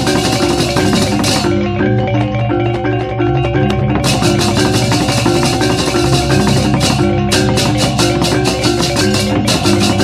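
Balinese baleganjur gamelan playing: bronze gongs and kettle-gongs striking fast interlocking patterns over drums, with rapid clashing cymbals. The cymbals stop about a second in and come back about four seconds in.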